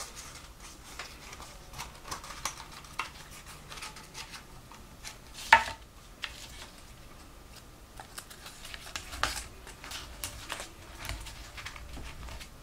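Corrugated cardboard strips rustling and scraping as they are handled and pushed into a small aluminium tin, with scattered light clicks of the tin. One sharp knock about five and a half seconds in as the tin is set down on the mat.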